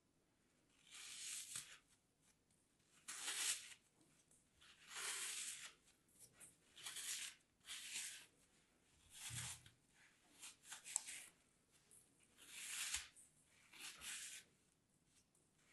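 Block of packed green kinetic sand crunching and crumbling as hands squeeze and break it apart: a soft, gritty crunch about every two seconds, each lasting under a second.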